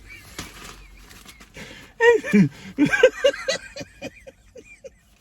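A horse whinnying about two seconds in: a loud call that falls in pitch, then breaks into a run of short, fading pulses.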